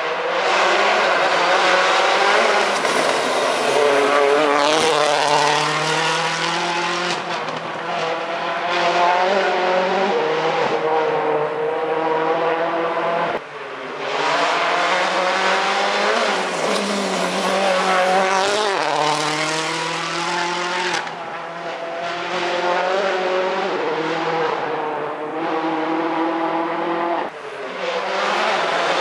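World Rally Car engines at full rally pace as the cars come up the stage. The revs climb and drop back over and over with gear changes and lifts, broken twice by sudden short dips as one car's run gives way to the next.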